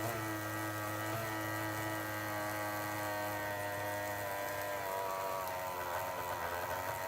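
Old 17-turn brushed RC car electric motor running submerged in a soapy water solution, a steady whine of several tones that drops slightly in pitch about five seconds in.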